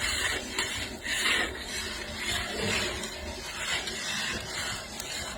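A halwa mixture being stirred and scraped in a large cooking pan: a rasping scrape that repeats about once a second.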